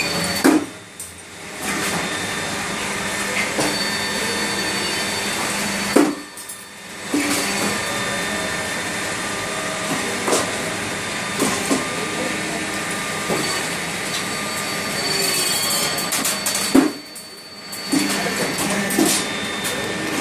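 Automatic CNC roll forming machine running steadily. Three times there is a sharp clunk, and the running drops away for about a second before it resumes.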